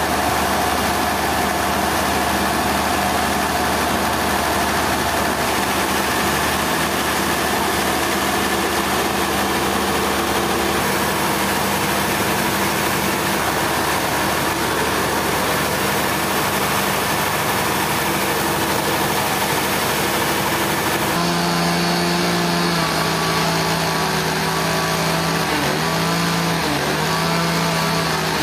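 Heavy sawmill machinery running steadily: an engine hum under a dense hiss. About 21 seconds in the tone shifts, and near the end the pitch wavers up and down.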